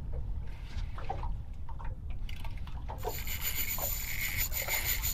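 Spinning reel's drag buzzing steadily from about three seconds in, as a hooked queenfish runs and pulls line off the reel, with a couple of brief breaks. Underneath is a low rumble of wind and water.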